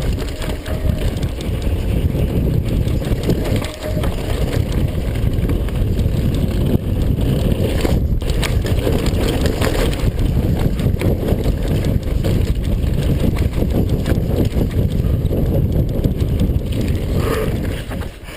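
Mountain bike riding down a rough trail: tyres rumbling over dirt and rocks, the bike rattling and clicking, and wind buffeting the microphone. It quiets abruptly near the end as the rider slows to a stop.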